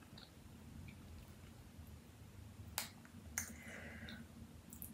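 Quiet room tone with a few faint, sharp clicks, the clearest two about three seconds in, followed by a brief soft rustle.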